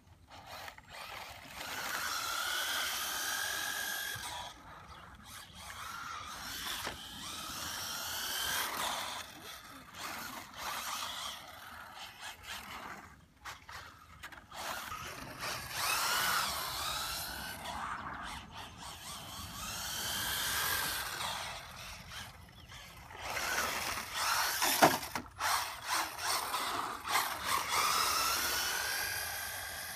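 Electric motor and drivetrain of a 1/14-scale Losi Mini Rally RC car whining in repeated bursts, the pitch rising and falling as the car speeds up, slows and passes back and forth on asphalt. One sharp knock near the end.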